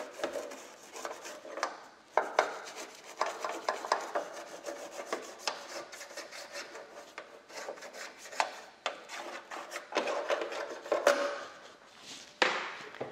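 Toothbrush bristles scrubbing the black grille inside a Ninja Foodi Max lid, which is wet with degreaser: a run of quick, irregular scraping strokes.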